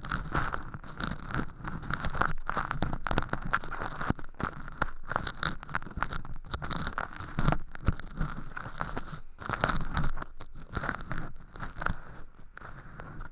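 Ear pick scraping and crushing thin, crispy sawdust-like flakes packed in a clear tube over a binaural microphone's ear canal. It makes a dense, irregular stream of close crackles and rustles.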